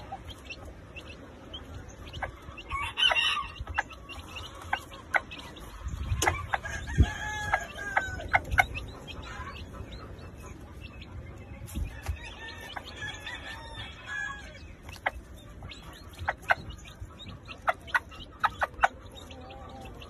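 Chickens clucking in many short, sharp calls scattered throughout, with a rooster crowing.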